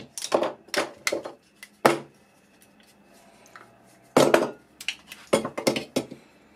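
Metal hand clamps being unclipped and set down on a wooden workbench: a run of clattering knocks and clicks, a pause of about two seconds, then a second run.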